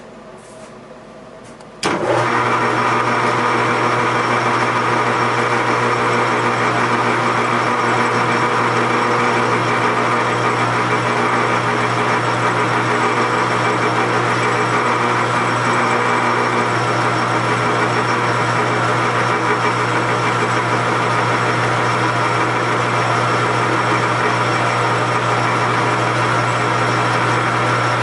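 A lathe motor switches on about two seconds in and runs steadily, a loud machine hum with a strong low drone and a whine above it, while a cartridge case neck is turned.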